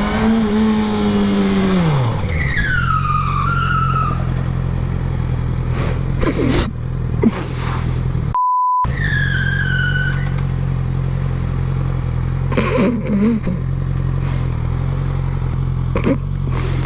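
Suzuki GSX-R600 inline-four engine dropping back from revs to a steady idle. Its tyre squeals twice, each a short squeal sliding down in pitch, about two seconds in and again about ten seconds in. A short single-tone beep sounds about eight seconds in.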